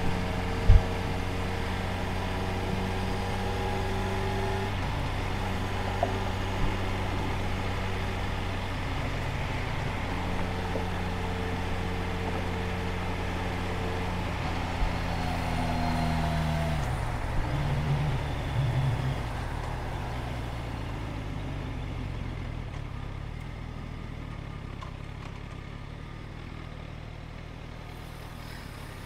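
Motorcycle and road traffic, with a steady engine note holding an even pitch for the first two-thirds. A few short clicks are heard. About 17 seconds in, that note drops away and the sound grows quieter, leaving a low, steady rumble.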